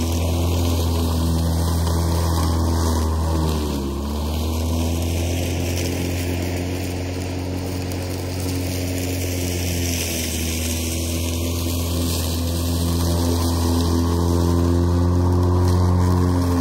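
Makita 18V X2 (36 V) cordless self-propelled lawn mower running, its blade spinning with a steady low hum as it cuts tall grass. The pitch dips briefly about four seconds in as the blade takes a heavier load.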